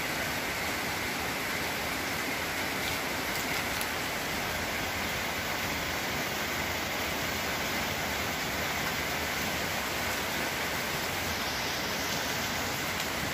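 A steady, even hiss of background noise with no breaks or changes.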